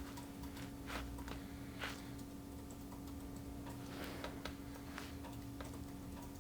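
Faint, irregular soft clicks and taps over a steady low hum.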